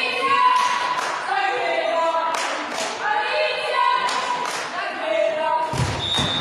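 Several voices chanting and calling out together, some notes held like a sung cheer, with a few claps and thuds of a volleyball.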